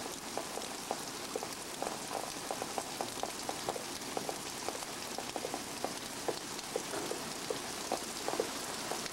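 Heavy rain pouring onto a swimming pool's water: a steady hiss with many separate drops plopping on the surface.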